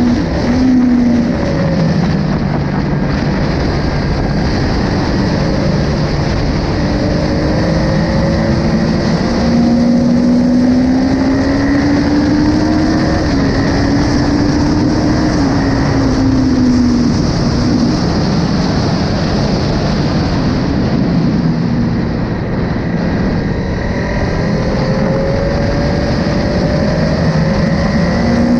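Triumph Tiger 800 XCX's three-cylinder engine at track speed, its pitch falling about a second in, climbing between roughly 9 and 13 seconds, dropping away again by about 17 seconds and climbing once more near the end as the rider accelerates and rolls off between corners. Wind rushes steadily over the bike-mounted microphone throughout.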